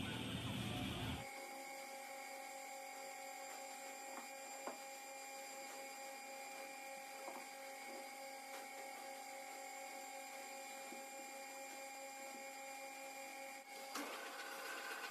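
A machine motor running with a steady whining hum made of several fixed tones, with a few faint light ticks. A louder, rushing machining noise cuts off about a second in.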